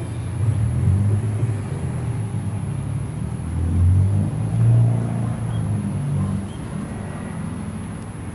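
Train running past with a low engine rumble that swells twice around the middle, then eases off.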